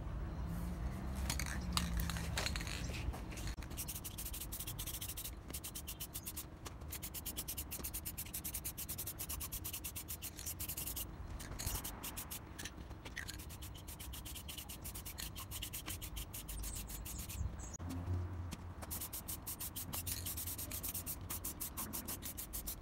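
Aerosol can of clear acrylic lacquer spraying in several long bursts, with short breaks between them.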